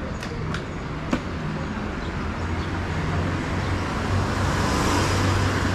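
Steady low rumble of a moving train's running gear. A few sharp clicks come in the first second or so, and a hiss swells near the end.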